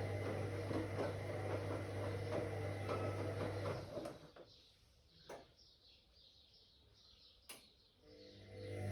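Whirlpool AWOC 8283 washing machine running with a steady low hum. The hum stops about four seconds in, leaving a quiet pause with two sharp clicks, and starts again near the end, as the drum halts and turns again during the wash.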